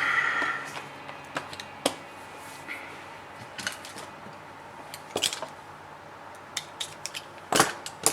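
Scattered light clicks and taps of a smartphone being handled and tapped, with a brief electronic tone at the very start and a louder cluster of clicks near the end.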